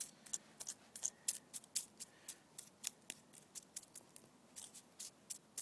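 Charred birch bark remains being scraped and pushed across a flat stone: an irregular run of dry scratches and ticks.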